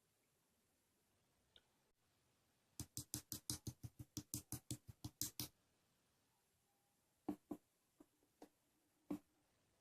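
A quick run of sharp clicks or taps, about six a second for nearly three seconds, then a few scattered single clicks.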